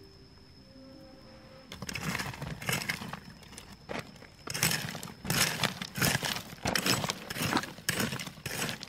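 Hoe blade chopping and scraping into loose stony soil, over and over: irregular strikes with rattling stones and earth, starting about two seconds in and coming thicker and louder from about halfway.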